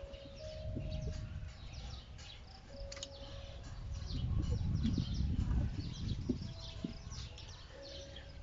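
Birds chirping in the background over a low rumble of handling noise, with a few faint clicks as hands work a halogen fog lamp bulb and its wiring connector loose in a car's engine bay.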